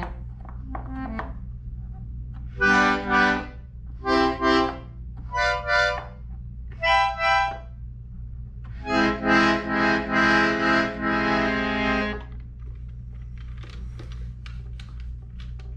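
Small Russian button accordion sounding four short chords about a second apart, then one chord held for about three seconds, then only faint clicks near the end. A steady low hum runs underneath.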